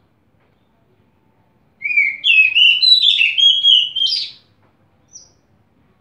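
Oriental magpie-robin (kacer) singing: one loud phrase of varied, quickly changing whistled notes lasting about two and a half seconds, starting about two seconds in, then a single short high note about a second later.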